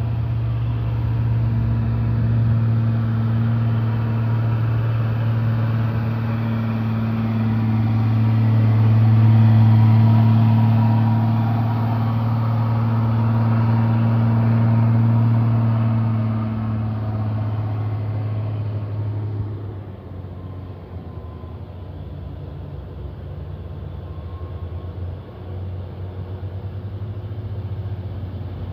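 Mitsubishi Fuso truck's diesel engine labouring up a steep climb under load at steady revs. It passes close, loudest about a third of the way in, then drops away about two-thirds through, leaving a quieter engine hum.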